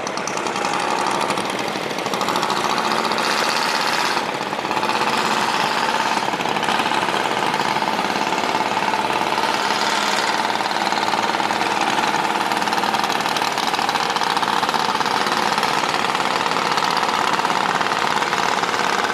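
Boat engine running steadily close by; it grows louder over the first second, then holds.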